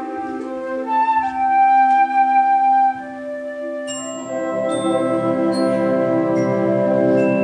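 School concert band playing a slow passage: a single sustained melody over held chords, then about four seconds in the band fills out with a pulsing low figure, flutes and bell-like mallet strikes.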